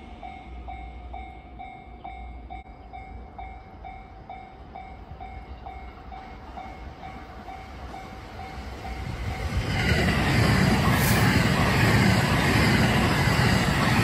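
Japanese level-crossing warning bell ringing about twice a second, then a local electric train on the JR Tokaido Line approaching and passing close by. Its running noise swells about eight seconds in and covers the bell, with a single sharp click partway through the pass.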